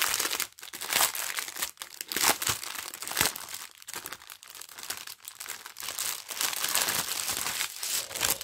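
Clear plastic film wrapping crinkling and crackling as hands peel and pull it off a strip of sealed plastic bags of diamond-painting drills. The crackling is irregular throughout and stops right at the end.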